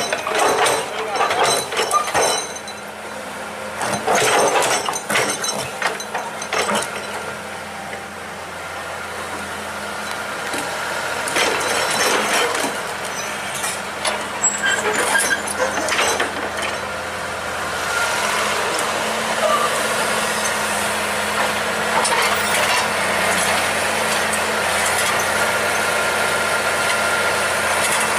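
Excavator's diesel engine running steadily under load, with scattered clanks and knocks from the working machine; the engine grows louder and busier about two-thirds of the way through.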